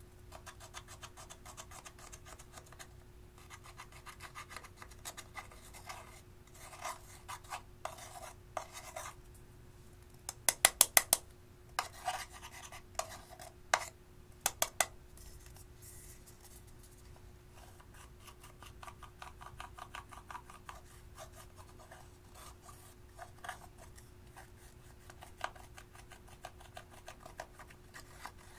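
Metal spatula scraping and crumbling pressed eyeshadow out of the pans of a plastic palette, a steady run of fine scratchy strokes. A little after ten seconds in comes a quick run of about five sharp taps, the loudest sounds, followed by a few single clicks.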